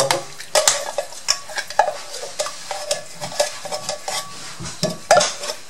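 A spatula scraping out the inside of a metal coconut-milk tin, with irregular short scrapes and knocks against the can over the pot.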